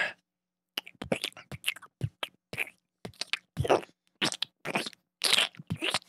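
A person making an improvised Foley sound effect with the mouth close to a microphone: an irregular series of short, wet smacking and squelching sounds, a few a second, meant to pass for a dog licking peanut butter or rubber boots in a bog.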